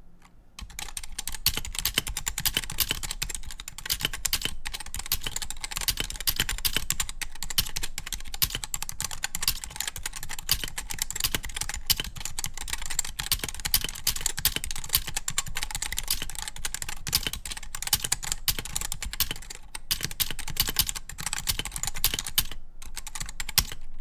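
Steady touch typing on an Ace Pad Tech Hall effect keyboard with linear magnetic switches and thin double-shot PBT/POM keycaps: a dense, continuous run of keystrokes starting about half a second in, with a couple of brief breaks.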